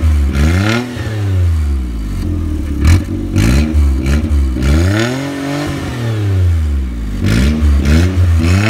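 Maruti 800 MPFI's three-cylinder engine revved in a series of throttle blips through an exhaust with no muffler fitted, the note rising and falling with each blip. There is a sharp crack about three seconds in.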